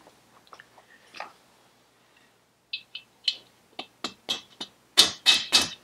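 Hammer tapping a tight gudgeon pin through the warmed piston and small end of a Vespa PX two-stroke engine. A few faint clicks come first, then a run of about nine sharp taps, and the last three are the hardest.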